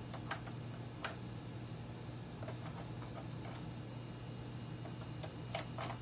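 Light, scattered clicks of a metal pick tapping and pressing on the rails and point rail of an HO-scale Atlas snap switch, with several quick clicks close together near the end, over a steady low hum. He is pressing the points down to find a bad electrical contact where the track power cuts out.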